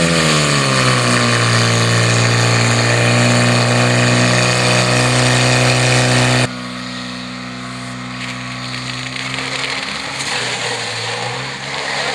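Portable fire pump's petrol engine running hard; its pitch falls in the first second and then holds steady. About six and a half seconds in, the sound drops suddenly to a quieter, more distant engine hum.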